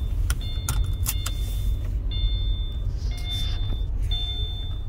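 Low road and engine rumble inside a moving Subaru Forester's cabin, with a few sharp clicks in the first second and a half. From about two seconds in, a high electronic beep sounds about once a second, each beep about half a second long.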